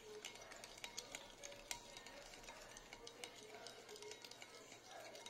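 Metal spoon stirring a runny sauce in a small ceramic bowl, with frequent faint, irregular clicks and scrapes of the spoon against the bowl.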